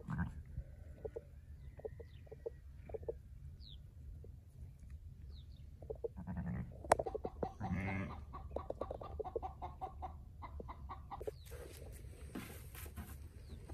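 Chickens clucking around the yard, with sheep bleating a few times and small birds chirping faintly; a rustling noise near the end.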